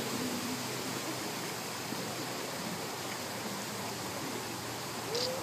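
A steady, even hiss that holds at one level throughout, with no distinct events.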